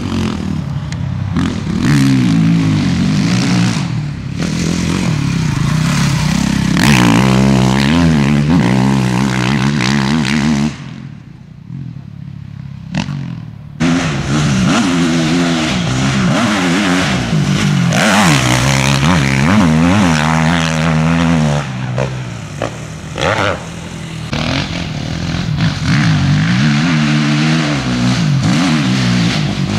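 Husqvarna FC 450 factory motocross bike's single-cylinder four-stroke engine being ridden hard, the revs rising and falling with each throttle opening. The engine sound drops away for about three seconds near the middle, then returns.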